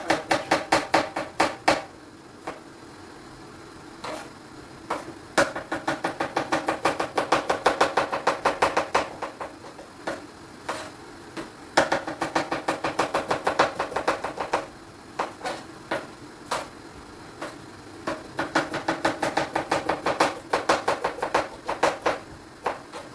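Kitchen knife chopping quickly on a cutting board: runs of rapid, even strokes, several a second, lasting a few seconds each, broken by short pauses.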